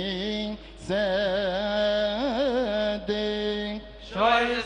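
A man's solo voice chanting Coptic liturgical chant, holding long, steady notes with a wavering melismatic ornament in the middle. He breaks off briefly for breath about half a second in and again near the end.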